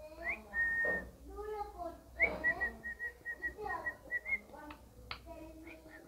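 Cockatiel whistling: a rising whistle held briefly, then after a short pause a quick run of short notes at the same pitch, about five a second, ending in a couple of upward chirps.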